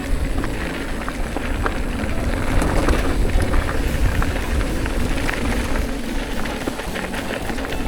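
Wind buffeting a moving camera's microphone, a steady rumble, with a scattered crackle of contact with the ground as the rider travels downhill at speed.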